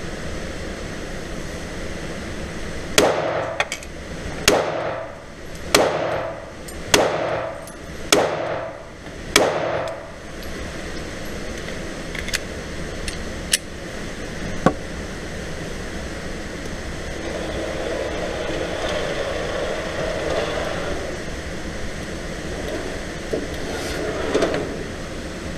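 Six shots from a Glock 43 9mm pistol fired at a steady pace, each a loud crack echoing off the walls of an indoor range, followed by three fainter sharp cracks. A steady ventilation hum runs underneath.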